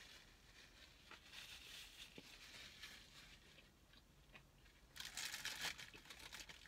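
Paper food wrapper crinkling as it is handled, in short faint rustles and then a louder crinkling burst of about a second about five seconds in.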